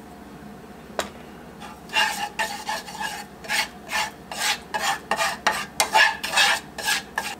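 A slotted spatula stirring and scraping flour into hot oil in a nonstick skillet to make a roux for milk gravy: a run of quick rasping strokes, about two or three a second, beginning about two seconds in. A single click comes about a second in.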